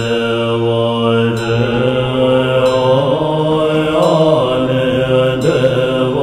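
Buddhist mantra chanting: voices hold long, slowly changing tones over a steady low drone.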